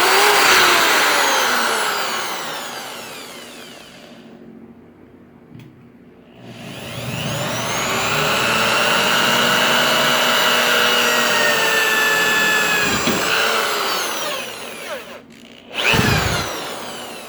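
Electric power-tool motor, drill-like, running at speed and then winding down with falling pitch over about four seconds. After a short pause it starts again, speeds up, runs steadily for several seconds, then slows and stops. A short burst follows near the end.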